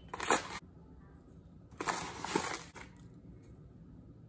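Plastic bag of powdered milk rustling as it is handled, in two short bursts, one at the start and one about two seconds in.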